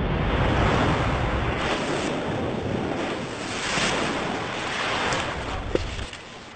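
Rushing water like surf, mixed with wind noise on the microphone, coming in uneven surges. It fades down shortly before the end.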